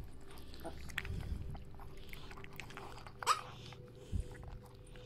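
Yorkshire terrier mother licking her newborn puppy: soft, wet licking and fur rubbing against a towel, with many small clicks and one short rising squeak about three seconds in.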